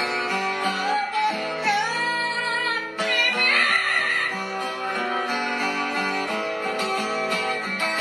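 Plucked acoustic guitar music with a high singing voice over it, loudest about three and a half seconds in: an amazon parrot singing along.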